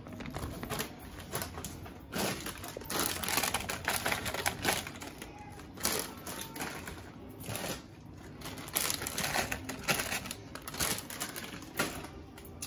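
Frozen fruit chunks tipped from a plastic bag into a plastic strainer basket: irregular clattering of hard pieces landing, with the bag rustling, in several pours.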